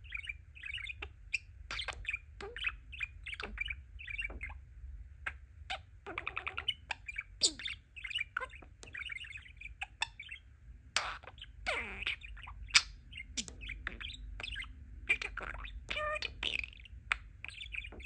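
Pet budgerigar warbling: a continuous chatter of quick chirps, clicks and short squeaky notes.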